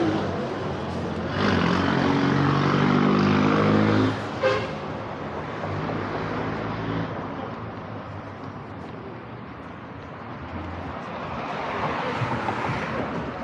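A heavy engine drones steadily and loudly for about the first four seconds, then gives way to softer general street noise. A sharp click comes just after the drone stops, and the street noise swells again near the end.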